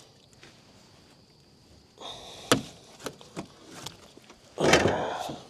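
A sharp knock, a few lighter taps, then a louder, longer thud near the end.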